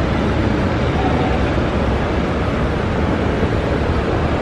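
Steady low rumbling noise of an airport terminal's ambience, even throughout with no distinct events.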